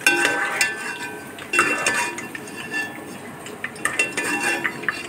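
Stainless steel mesh strainer knocking and scraping against a cooking pot while scooping fried potato strips out of oil, giving a series of ringing metallic clinks in clusters near the start, about a second and a half in, and around four seconds in.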